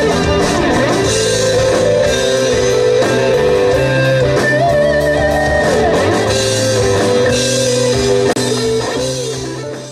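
Rock band playing: an electric guitar carries a held, bending melody over bass and drums, fading out at the end.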